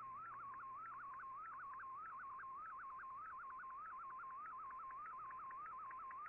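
MFSK colour picture transmission from a shortwave digital-mode broadcast, heard through an Icom IC-R8600 receiver: a single tone near 1 kHz that warbles continuously, jumping briefly higher in pitch several times a second.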